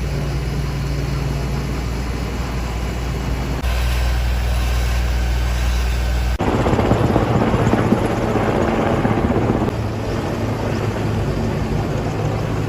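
Firefighting helicopter's engine and rotor running steadily, with two abrupt changes in the sound about four and six seconds in, after which it turns rougher and noisier.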